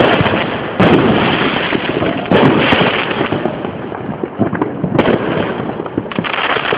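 Fireworks going off in quick succession: dense crackling and popping, with sudden louder bursts about a second in, about two and a half seconds in, and about five seconds in.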